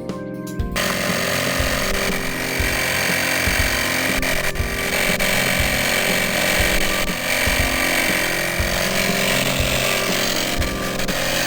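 A loud, steady mechanical noise that starts abruptly about a second in.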